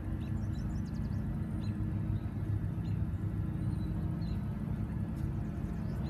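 Cat GC40K forklift's LPG engine running steadily at low speed as the truck creeps across the gravel. Faint bird chirps sound now and then above it.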